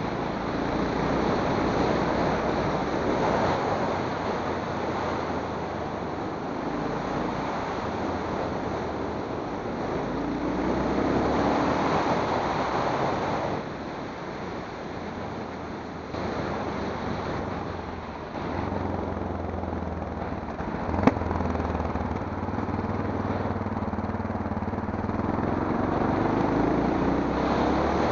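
Wind rush and motor noise from a moving vehicle, the motor's pitch rising twice as it picks up speed. A single sharp knock about three quarters of the way through.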